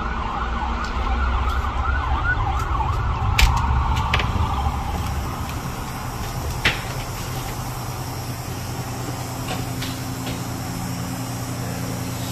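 An emergency vehicle siren in a fast, repeating yelp over a low traffic rumble, dying away about five seconds in. After it comes a steady low hum, with a few sharp clicks.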